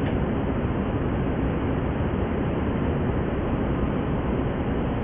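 A steady rushing noise with no distinct sounds standing out.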